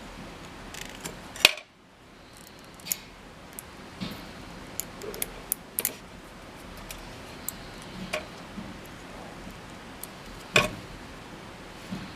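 Support material being snipped and snapped off a 3D-printed plastic part with a hand tool: irregular sharp clicks and cracks, the loudest about one and a half seconds in and another near the end.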